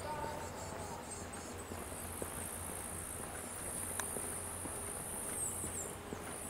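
A high-pitched insect drone, steady, starting about two seconds in and stopping shortly before the end, with a few short bird chirps near the end.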